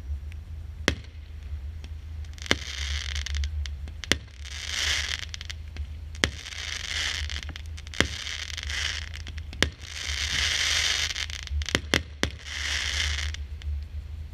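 Consumer fireworks cake (battery) firing shots one after another: a sharp launch report about every one and a half to two seconds, each followed by about a second of crackling as the shell bursts overhead, with a quick triple of shots near the end.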